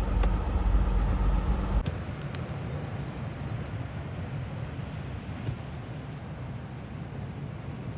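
Vehicle road noise heard from inside while driving: a steady low rumble. It drops abruptly about two seconds in to a quieter, even rumble.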